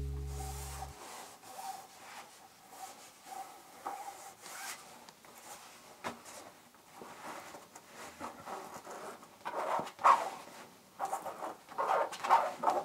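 Hands rubbing and scraping lampshade material in irregular strokes, quiet at first and louder and busier over the last few seconds.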